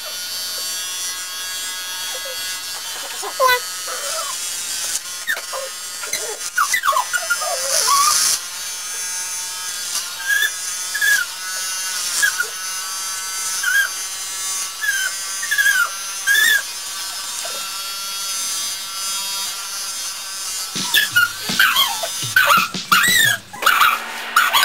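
Electric hair clippers buzzing steadily as they shave the side of a head. Short high sliding tones come every second or two over the buzz.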